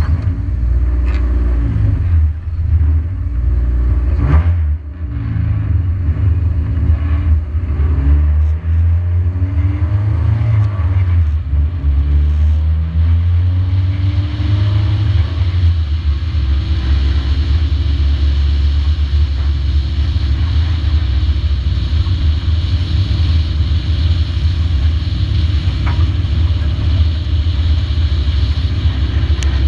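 Race car engine heard from a hood-mounted camera, a deep rumble whose pitch rises and falls over the first half as the throttle comes on and off. From about halfway it holds a steady pitch, with a rushing hiss on top.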